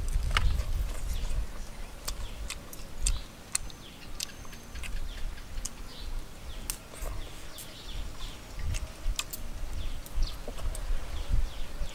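Crunching and chewing on crispy fried fish, close up: many sharp, crisp clicks as the bites break the fried skin, over a low rumble.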